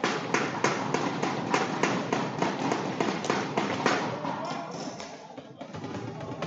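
Spectators clapping and cheering after a point, with sharp claps in a steady rhythm of about three a second that thin out after about four seconds.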